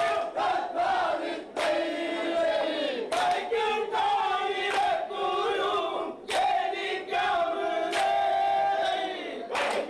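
A group of men chanting and singing in chorus, with sharp beats about every one and a half seconds.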